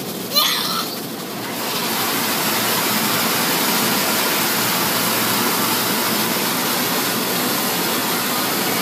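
Automatic car wash machinery and water spray rushing steadily against the car, heard from inside the cabin; the noise gets louder about two seconds in. A brief sharp, wavering high sound comes just before that.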